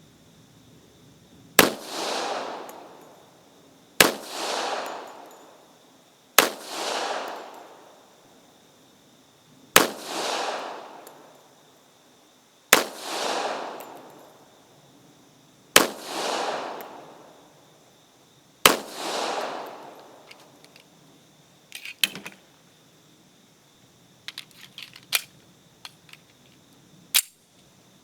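Springfield Armory M1911A1 .45 ACP pistol fired seven times at a slow, deliberate pace, one shot every three seconds or so, each crack followed by a rolling echo. Near the end come a few sharp metallic clicks and clacks.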